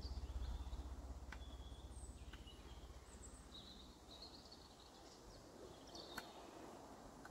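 Faint bird chirps in the background, with a few light clicks and a low pulsing hum that fades away over the first three or four seconds.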